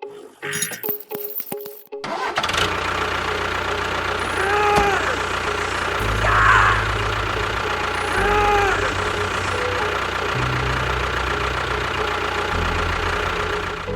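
An engine-like running sound starts about two seconds in after a few clicks. Its low hum steps up and down in pitch throughout, and two short rising-and-falling tones come in around five and eight and a half seconds.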